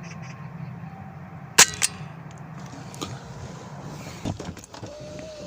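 A single air rifle shot about a second and a half in: one sharp crack with a brief metallic ring after it, over a steady low hum. A few fainter knocks follow.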